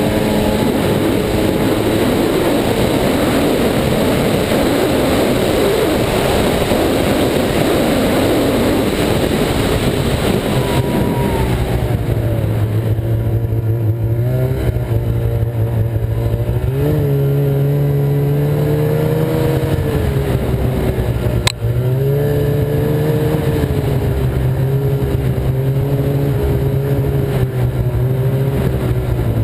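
Ski-Doo snowmobile running at speed along a snow trail, the engine mixed with track and wind noise. About ten seconds in, the engine note drops, then holds fairly steady with small rises and dips. A single sharp click comes a little past the middle.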